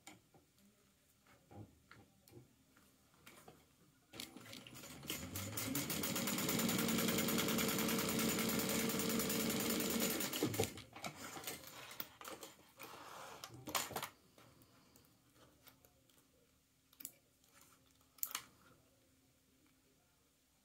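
Sewing machine stitching: it speeds up about four seconds in, runs at a steady pace for about six seconds, and stops sharply. A few light clicks and a brief rustle of handling follow.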